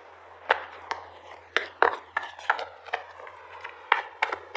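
Oracle cards being handled: a string of about a dozen sharp, irregular clicks and taps.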